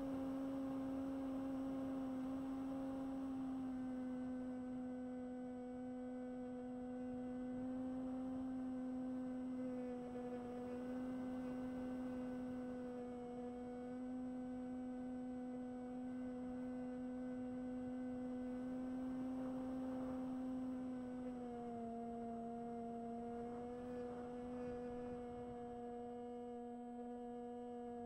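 Electric motor and propeller of a Bixler 1 model plane in flight, a steady whine that holds one pitch and steps down slightly twice, about three-quarters of the way through and again at the end.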